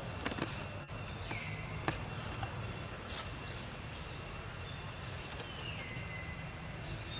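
Outdoor background with a steady low rumble and a few sharp clicks in the first few seconds. Two thin, high calls slide down in pitch, one about a second in and one near the end.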